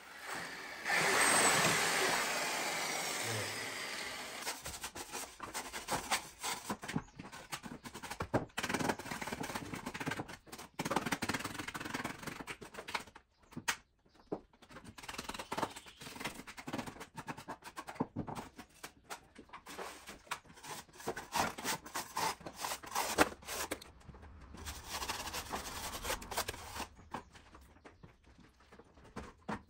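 Hand work with wet plaster on a long moulding mould: irregular scraping, clatter and knocks of a bucket and a hand spreading tool. About a second in, a hiss swells and fades over about three seconds.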